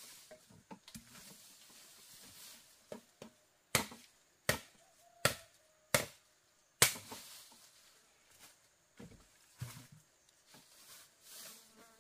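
A blade chopping bamboo: five sharp strikes in an even rhythm, about one every three-quarters of a second, a few seconds in, with lighter knocks and rustling before and after.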